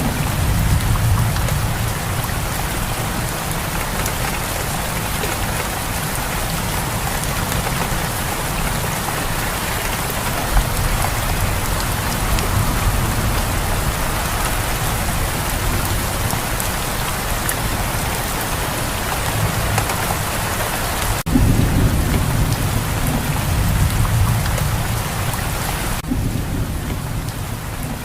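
Steady heavy rain with low rolling thunder rumbling underneath, swelling a few times, with a sudden cut about three-quarters of the way through.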